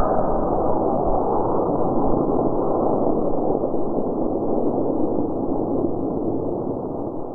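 Model rocket's solid-fuel C motor firing at liftoff: a loud, steady rushing roar that fades near the end.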